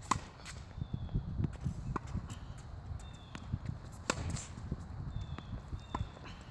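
Tennis racket hitting the ball on forehand groundstrokes: several sharp pops a second or two apart, the loudest near the start and about four seconds in, with footsteps on the hard court between them.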